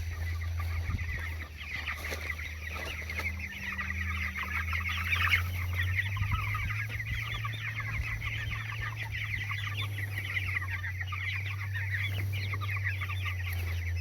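A large flock of chickens clucking and chirping all at once in a dense, continuous chatter, over a steady low hum.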